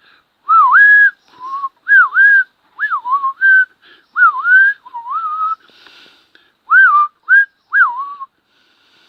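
A man whistling a string of about a dozen short swooping notes, each dipping and then rising in pitch, with short gaps between them, as a call to a bird.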